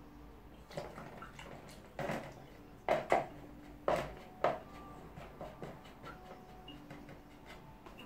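Several light knocks and clinks of small hard objects being handled, the loudest clustered between about three and four and a half seconds in.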